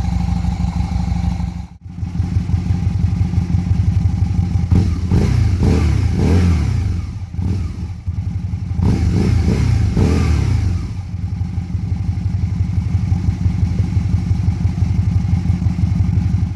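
Aprilia RST1000 Futura's V-twin engine through aftermarket twin silencers: it idles, breaks off briefly about two seconds in, and is revved in two bursts of throttle blips, one a few seconds in and one about two-thirds of the way through. It settles back to a steady idle afterwards.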